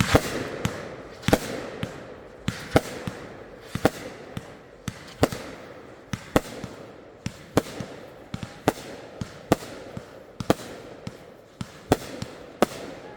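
Consumer fireworks going off in a rapid series: about two sharp bangs a second, with crackle and hiss between the shots.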